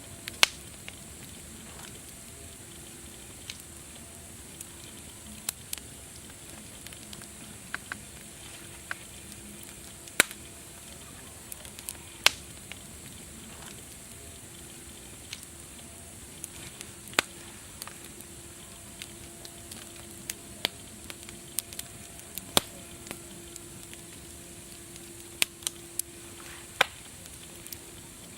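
Wood fire crackling: many sharp pops and snaps at irregular intervals over a steady hiss.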